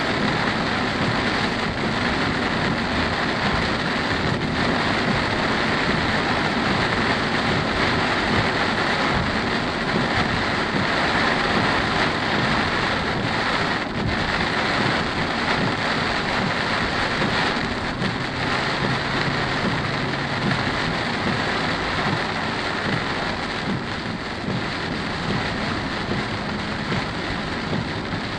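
Heavy rain falling on a car driving through a storm, heard from inside the car: a steady, dense hiss of rain on the roof and windshield mixed with road noise.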